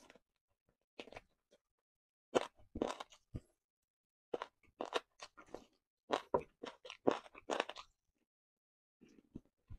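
A person eating chicken close to the microphone: crunchy bites and chewing in short clusters, with dead silence between them.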